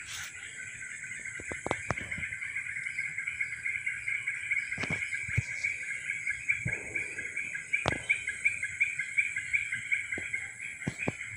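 A steady high chirping chorus from the surrounding vegetation with a quick regular pulse, several chirps a second, running on without a break. Scattered sharp snaps and footsteps in the undergrowth break in now and then.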